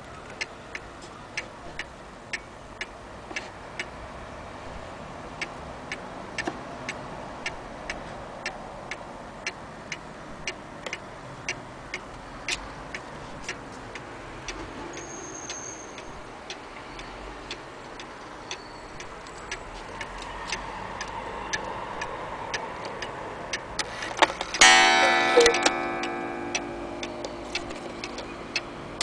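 Antique Black Forest cuckoo clock ticking steadily. About 25 seconds in, the cuckoo call starts, loud and repeated, after the minute hand has been moved to the hour.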